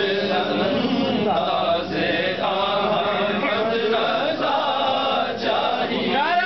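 Urdu naat, a devotional poem, chanted by several men's voices together. Near the end a single man's voice glides up in pitch and takes over alone.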